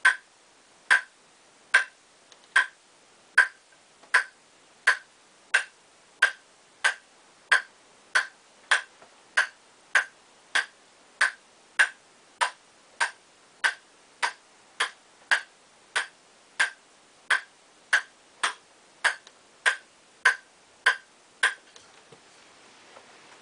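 Table tennis ball bounced repeatedly on a Nittaku KCZ Kevlar-carbon blade: an even series of sharp pocks, a little more than one a second, that stops shortly before the end.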